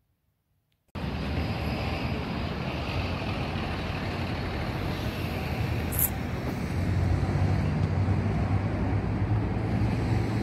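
A car driving: steady engine and road noise from the moving vehicle. It starts abruptly about a second in and grows a little louder past the middle.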